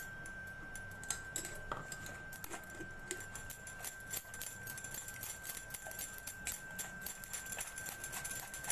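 Steel spoon scraping and clicking against a stainless-steel mesh strainer as blended corn is pressed through it, with many quick, irregular clicks. This is the straining step that separates the corn pulp from the liquid.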